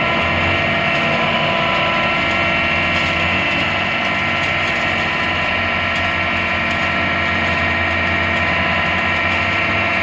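Pezzolato S9000 hammer shredder running steadily while shredding green waste into compost: a constant machine hum with several held tones.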